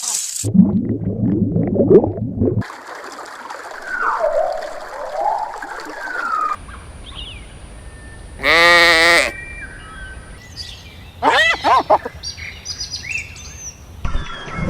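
A run of different animal calls cut abruptly one after another. The loudest is a quavering bleat a little past the middle, followed by another short pitched call a couple of seconds later.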